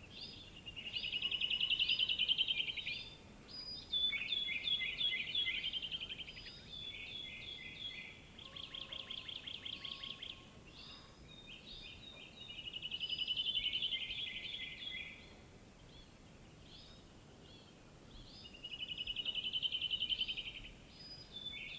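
Songbirds singing outdoors: rapid trilled songs, each a second or two long and swelling then fading, repeated every few seconds, with shorter chirps between them.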